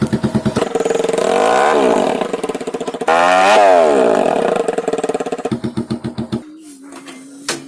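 Yamaha Fazer single-cylinder motorcycle engine through an aftermarket SC Project silencer: a fast pulsing idle blipped twice, each rev rising and falling in pitch. About six seconds in the engine note drops away, leaving a faint steady hum and a single click.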